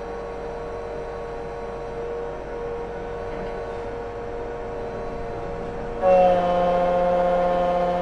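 XTOOL automatic key cutting machine milling a track-cut Mercedes key blank, its motors running with a steady whine and hum. About six seconds in it suddenly gets louder, with a higher whine.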